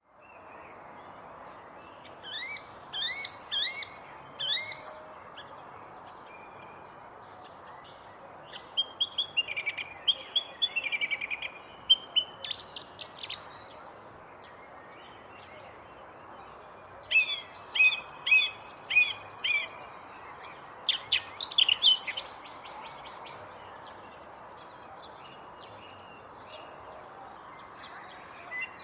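A bird singing in several bursts of quick, repeated chirping notes, with pauses of a few seconds between phrases, over a steady background hiss.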